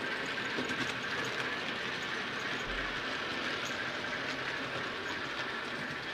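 A 00 gauge model train runs steadily past on the layout: a model steam locomotive hauling a rake of goods vans, making a continuous running sound on the track.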